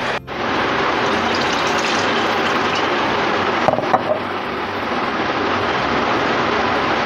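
Steady rushing noise of a pot of rice and water heating on a gas stove, with a couple of brief clicks a little before four seconds in.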